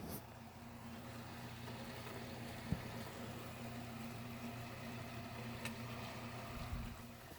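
Vintage General Electric refrigerator's compressor running with a steady low hum, fading near the end, with a single knock about three seconds in.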